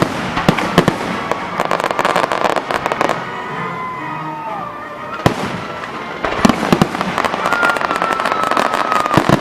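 Aerial fireworks going off: repeated sharp bangs over dense crackling, thickest at the start and again from about six seconds in. A falling whistle comes near the middle, and a long steady whistle near the end.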